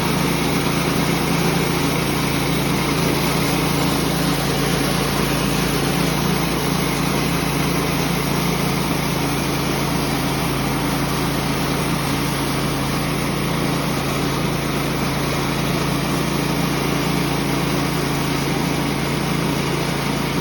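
Sawmill's engine running steadily at a constant speed, with a low, even hum.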